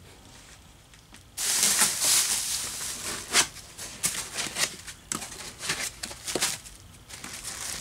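Packaging being handled and unwrapped: rustling and crinkling with many sharp crackles, starting about a second and a half in.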